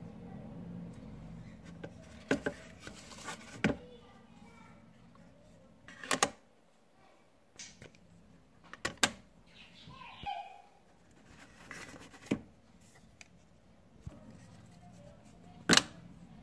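Plastic eyeglass frames and a magnetic clip-on sunglass lens being handled: a handful of sharp, separate clicks and taps spread out over several seconds, the loudest near the end as the clip-on snaps onto the frame.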